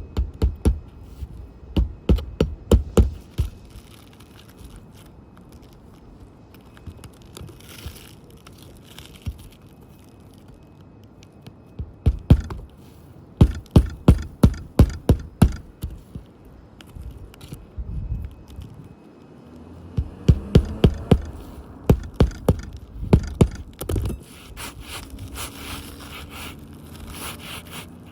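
Three bursts of rapid knocks and thuds with scraping on old, brittle asphalt roof shingles, in quick runs of about four or five strikes a second with quieter scraping between.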